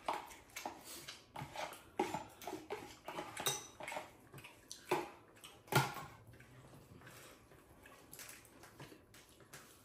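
Scattered clinks, taps and knocks of tableware as people eat by hand from metal bowls and handle a plastic cup, with the sharpest knock a little before six seconds in, then quieter.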